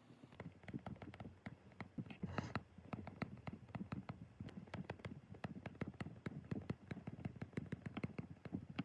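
Ballpoint pen scratching across paper in quick short strokes while writing or drawing, a rapid, uneven run of small scratches and taps.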